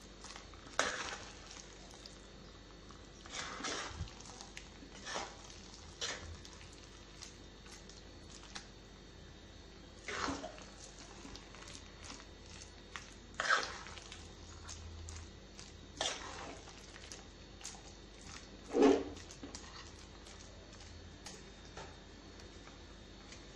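Steel spoon stirring and mashing thick, wet tapioca and chicken mix in a clay pot: short scrapes and squelches at irregular intervals, one to three seconds apart, the loudest about three-quarters of the way through.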